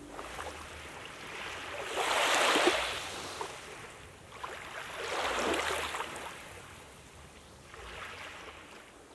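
Small waves washing up onto a sandy lakeshore and drawing back, three washes in all: the loudest about two seconds in, another around five seconds and a fainter one near the end.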